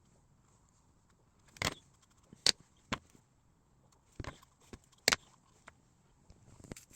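A hand tool scraping and carving into clay in short, sharp strokes, about six of them irregularly spaced, after a quiet start.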